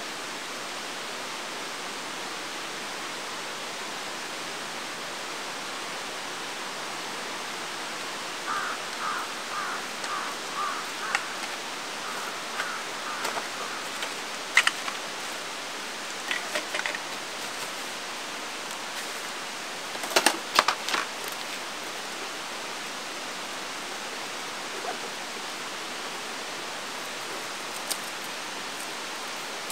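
Steady rush of flowing water from a mountain stream. Partway through comes a run of about ten short chirping notes, and later a few sharp knocks and clatters of camping gear being handled.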